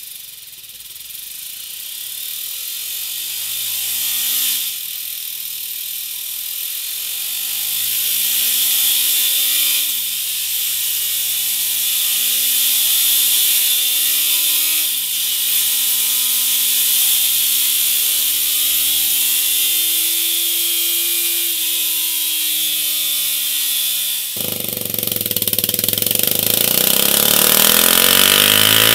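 BMW G 310 R's single-cylinder engine through its stock exhaust, its pitch climbing in four successive pulls that each dip briefly before the next, each pull longer than the last, like a motorcycle accelerating up through the gears. About 24 seconds in, the sound switches to the same engine through a MIVV Delta Race aftermarket silencer, louder and fuller, climbing again near the end.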